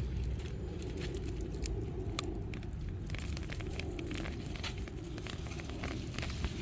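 Rustling and crackling of potato plants and soil being pulled and handled during a potato harvest, with scattered small clicks over a low steady rumble.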